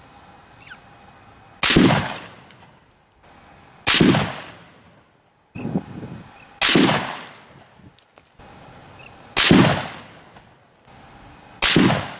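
Five shots from a Howa HLR bolt-action rifle in 6.5 Creedmoor, about two to three seconds apart, each ringing out and dying away: one five-shot group.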